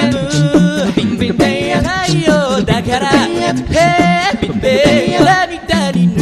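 Six-man male a cappella group singing live through microphones: a lead voice over close backing harmonies, with beatboxed percussion keeping the beat.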